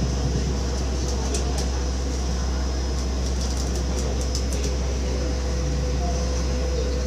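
Palm Jumeirah Monorail running, heard from inside the car: a steady low rumble and running noise with a faint constant hum and a few light, high clicks in the first half.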